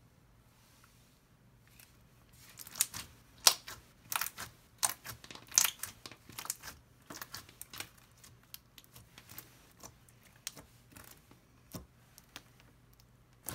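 Fishbowl slime, its beads crunching and clicking as the slime is squeezed and pressed. A dense run of sharp crackles starts about two seconds in, loudest for the next few seconds, then thins to scattered clicks.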